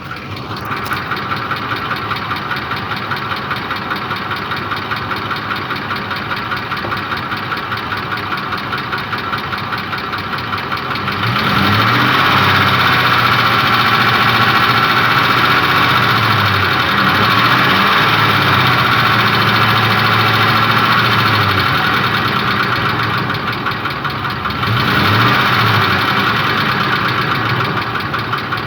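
Ford 5.4 3V Triton V8 running with the knock its owner is chasing, its cam-phaser solenoid connectors plugged back in. It runs steadily, then the revs go up about a third of the way in, wander up and down, drop back, and rise briefly again near the end.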